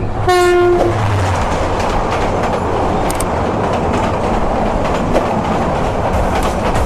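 A train horn blares briefly at the start. Then comes the loud rushing rumble and wheel clatter of two trains passing each other on a double line. The train going by on the adjacent track is hauled by a 2900-series metre-gauge locomotive and made up of Iranian vacuum coaches.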